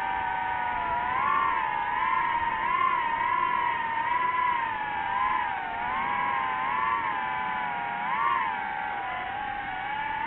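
DJI FPV drone's motors and propellers whining in flight, the pitch rising and dipping over and over as the throttle changes.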